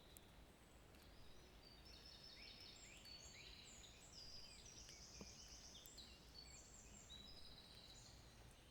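Faint birdsong: many short chirps and trills, busiest in the middle, over a low background hiss.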